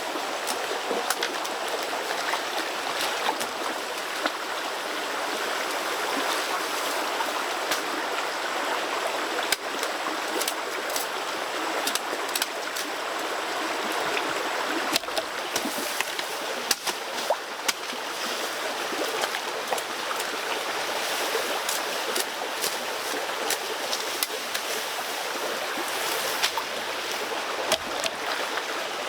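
Steady rush of flowing water, like a stream, with scattered light clicks and taps over it.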